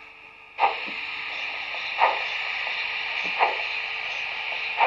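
Sound decoder of a Märklin 55077 Gauge 1 BR 78 model steam locomotive, heard through the model's loudspeaker as it starts off. A steady steam hiss sets in about half a second in, with slow exhaust chuffs about every second and a half.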